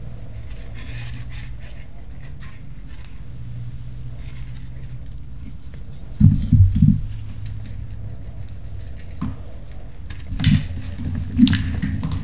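Blocks of reformed gym chalk being crushed: faint scattered crackles, with a few louder crunches about halfway through and twice near the end.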